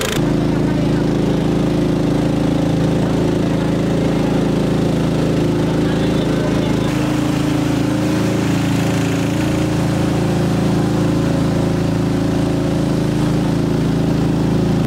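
Single-cylinder petrol engine of a 7.5 hp long-tail boat outboard (170FD, 208 cc) running steadily at an even speed while driving the boat.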